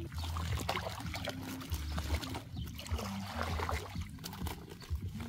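Shallow muddy water sloshing and trickling, with small irregular splashes, as legs wade through it and a mesh net is handled in it.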